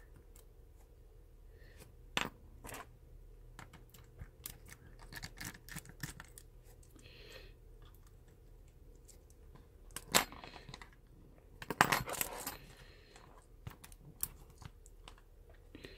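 Small clicks and scrapes of tweezers and a pry tool working on the internal metal and plastic parts of a disassembled compact digital camera, with a few sharper clicks scattered among them.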